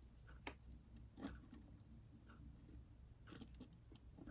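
Near silence: a few faint, short pencil strokes on paper over a low steady room hum.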